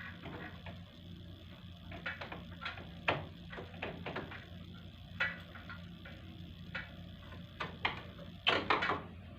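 Scattered clicks and knocks of something being handled, over a steady hum, with the loudest cluster of knocks near the end.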